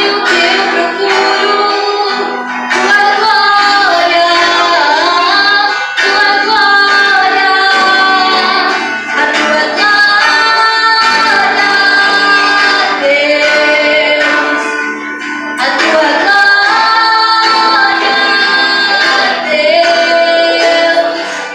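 Music: a woman singing a Christian worship song, holding long notes with vibrato over instrumental backing.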